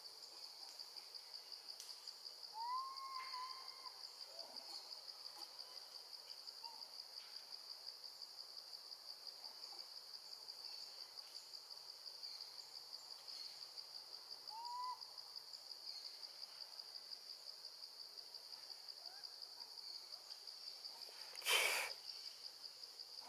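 A baby monkey giving a few short, arched, hoot-like coo calls, several seconds apart, over a steady pulsing insect chorus. Near the end there is one brief loud crackle.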